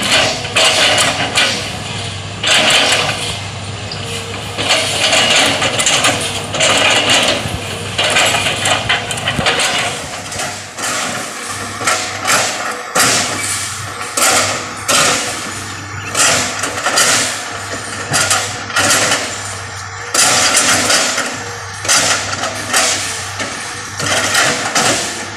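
An excavator's engine running steadily under repeated loud, noisy crunching bursts that come irregularly every second or two as the machine works.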